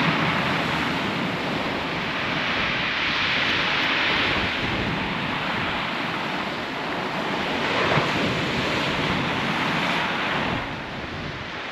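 Sea surf breaking and washing over a shingle beach, with wind buffeting the microphone. The wash swells and eases every few seconds and drops a little near the end.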